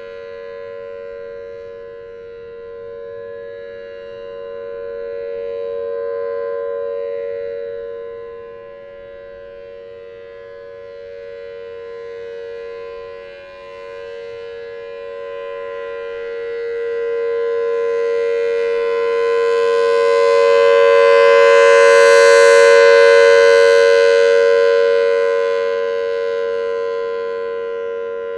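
Federal Signal Thunderbolt 1003A rotating outdoor warning siren sounding its steady alert tone, one unchanging pitch. It swells and fades as the rotating horn sweeps around, and is loudest about three quarters of the way through.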